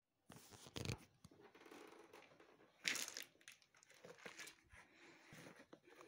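Quiet, irregular crunching and rustling close to the microphone, with a louder burst just before a second in and the loudest about three seconds in.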